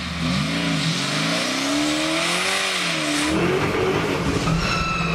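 Twin-turbo LSX V8 of a 1969 Camaro revving up and down, then pulling hard under full-throttle acceleration. The sound changes about three seconds in to the car's cabin, where a high whine comes in and slowly falls in pitch.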